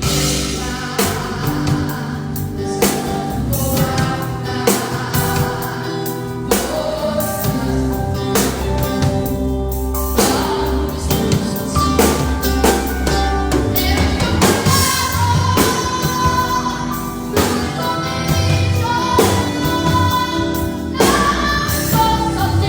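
A band playing a song: singing over a drum kit and bass, with steady drum hits throughout.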